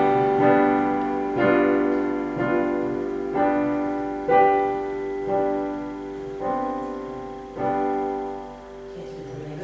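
Piano chords struck one after another, about one a second, eight in all, each left to ring and fade. They are the chords of an ear exercise in which the singer is to find and sing the tonic.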